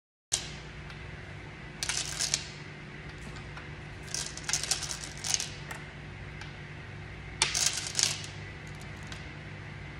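Go stones clicking as they are set down on a go board and knock against one another, in several bunches of sharp clicks, over a steady low hum.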